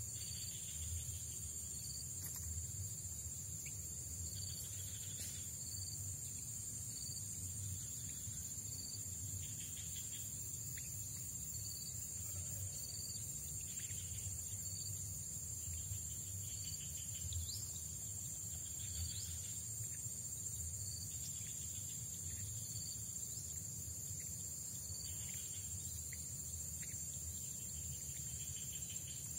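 Insects, likely crickets, trilling in a steady high drone, with a short high chirp repeating every second or two, over a low steady rumble.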